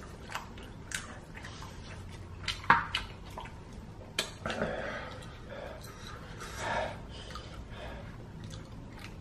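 Eating sounds from chicken wings being chewed and pulled apart by hand: wet mouth clicks and lip smacks, with scattered sharp clicks and a few short rustling or breathy sounds.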